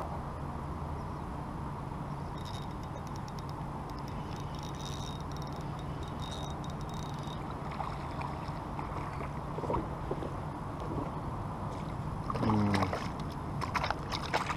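Water sloshing around a fishing kayak over a steady low rumble while a fish is played and brought to the landing net. A run of light ticks comes a few seconds in, and a cluster of splashes and knocks comes near the end as the fish is netted.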